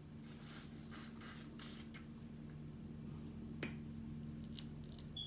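Soft, irregular clicks and smacks of someone eating seafood: chewing and lip smacks, about two a second, over a faint steady hum.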